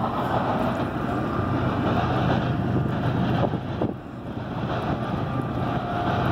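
CN freight train rolling through a grade crossing at a distance: a steady rumble of freight cars on the rails, with wind on the microphone. The sound dips briefly about four seconds in.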